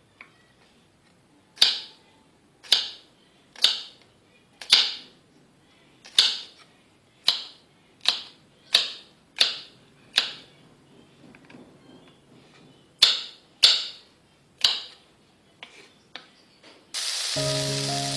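About a dozen short, sharp strikes, each with a brief hissy tail, come roughly a second apart with a pause in the middle. Near the end food hits hot oil in a pan and a loud, steady sizzle begins.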